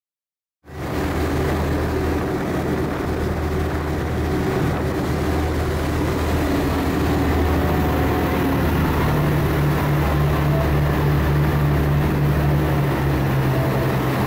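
Passenger ferry engine running with a steady low drone over an even rush of water and air from the wake, cutting in abruptly just under a second in. The low hum strengthens slightly about two-thirds of the way through.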